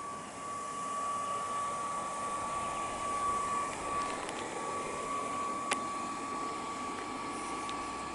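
Electric air blower running steadily to keep an inflatable bouncy castle inflated, a steady rushing noise with a constant whine. A single sharp click a little past halfway.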